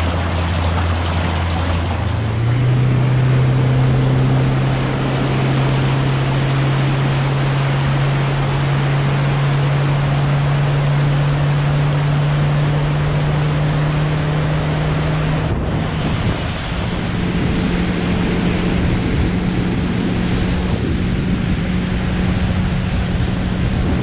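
A fishing boat's outboard motor running at speed with water rushing and splashing along the hull. The engine's steady hum steps up in pitch about two seconds in and again a little after halfway.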